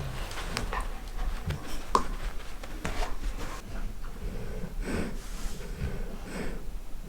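Golden retriever snoring loudly in its sleep, a run of irregular noisy breaths, with a few sharp clicks in the first three seconds.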